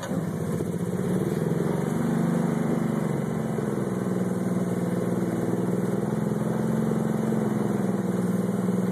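Golf cart engine running steadily as the cart tows a sled over snow, its pitch rising and falling slightly.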